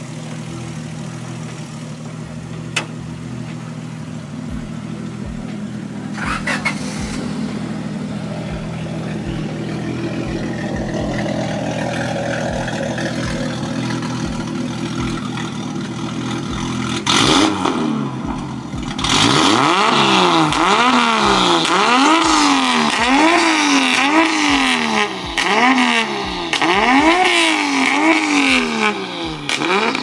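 Nissan Skyline's single-turbo RB26 straight-six running at a steady idle, then, a little past halfway, revved over and over, its pitch rising and falling about once a second. It is running smoothly again after a fault that had kept it from idling properly.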